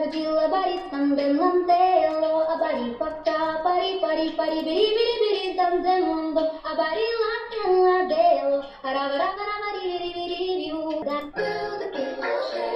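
A young woman singing a melody solo, played back from a TikTok singing-challenge clip. The sung line runs in short phrases, and the sound changes a little after ten seconds in.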